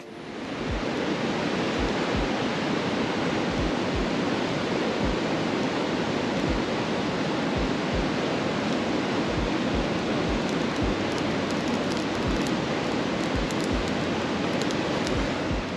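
Mountain stream's running water rushing steadily, with faint light clicks in the second half.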